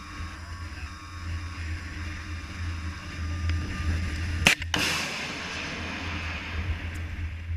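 FIM-92 Stinger missile launch: two sharp bangs close together, then the rocket motor's rushing hiss fading as the missile climbs away. A low steady rumble runs underneath.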